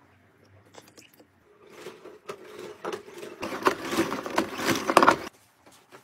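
Spin mop worked in its water-filled plastic bucket: water swishing and plastic scraping and rattling. It starts about two seconds in, grows louder and cuts off suddenly a little after five seconds.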